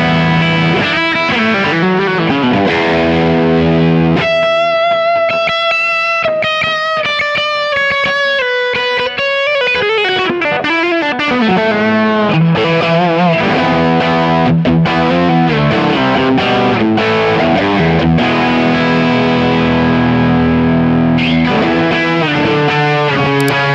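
Soloking MT-1 Telecaster-style electric guitar played through distortion: sustained chords, then a single-note lead line with vibrato and a bend sliding down about ten seconds in, then back to chords and riffs.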